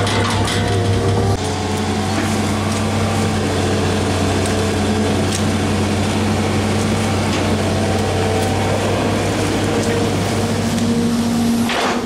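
Excavator's diesel engine running with a steady low drone. Higher tones come and go over it. The drone drops a little in level about a second and a half in.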